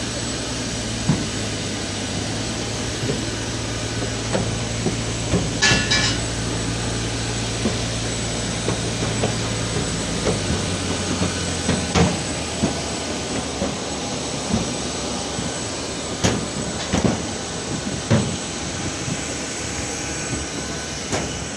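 Steady rushing noise of a parked airliner, with a low hum that drops away about ten seconds in and scattered knocks and clacks throughout. A brief high squeak about six seconds in.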